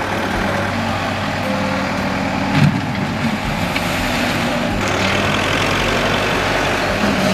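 Wheel loader's engine running steadily as the machine works, with one brief knock about two and a half seconds in.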